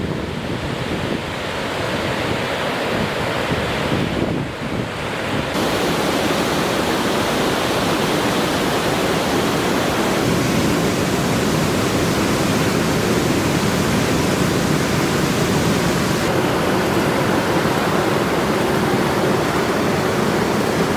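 Waterfall in flood, swollen by heavy rain, its water falling and rushing in a loud, steady rush. The sound turns brighter after about five seconds and then holds even.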